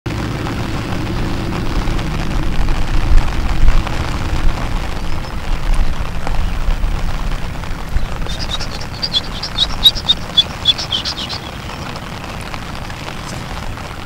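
Steady outdoor noise of rain on water with a low wind rumble on the microphone, heaviest in the first half. About eight seconds in, a quick series of short high chirps, roughly four a second, runs for about three seconds.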